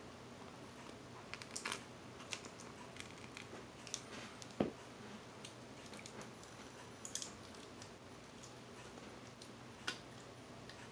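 Hands handling small plastic shipping cups: scattered faint clicks and crinkles of plastic, a few slightly louder snaps among them.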